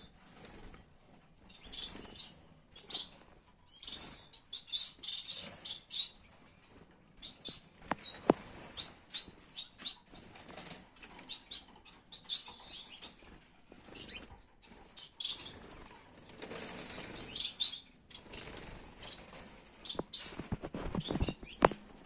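Gouldian finches flapping and fluttering in a wire aviary, with short, high chirps coming every second or so. Now and then a light click or tap sounds.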